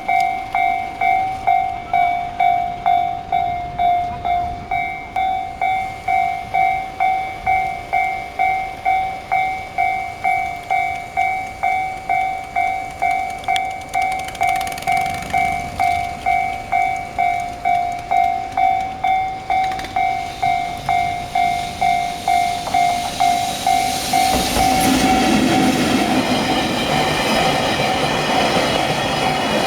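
Japanese railway level-crossing alarm ringing at about two dings a second. About 24 s in, an EF65 electric locomotive hauling a freight train reaches the crossing, and the clatter of its wheels grows loud over the alarm.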